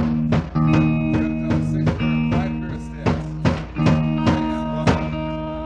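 Rock band playing live without vocals: held guitar chords over a steady drum beat, in a bluesy rock style.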